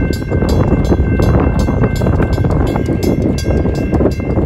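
Railroad crossing bells ringing: a WCH mechanical bell striking in a rapid, even rhythm together with the steady tone of a General Signals Type 2 electronic bell, over the low rumble of a freight train rolling past.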